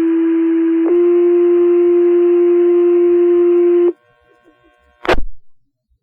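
Fire department two-tone sequential paging tones over the dispatch radio, alerting the volunteer station: a first tone for about a second, then a slightly higher second tone held about three seconds, with radio hiss. A short burst of radio static follows about a second after the tones stop.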